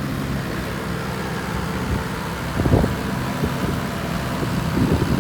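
A vehicle engine running steadily, with a few louder irregular bumps about halfway through and near the end.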